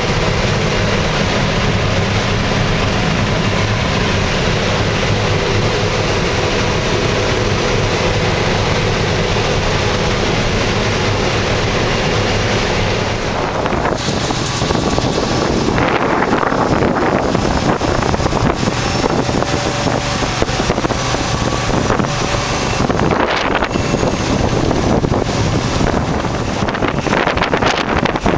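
Combine harvester running steadily while harvesting corn, a constant low engine drone. About halfway through it cuts abruptly to heavy wind buffeting the microphone in gusts, with the machine still running underneath.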